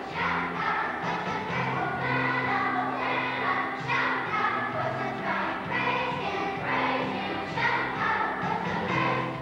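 A large children's choir singing with instrumental accompaniment that holds long low notes under the voices.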